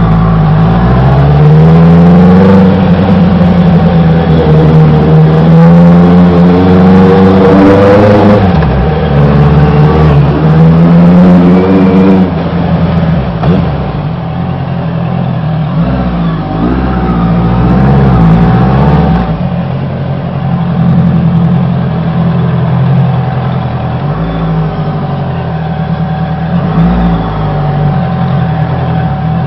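Honda CBR 650R's inline-four engine through an Austin Racing aftermarket exhaust, revving up and down on the move. The revs climb and fall hard for about the first twelve seconds, then the engine runs lower and quieter on lighter throttle.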